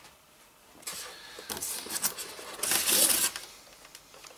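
Rustling and scraping of packaging being handled, in a few short bursts with the loudest about three seconds in, as the radio-control transmitter is lifted out of its polystyrene packing.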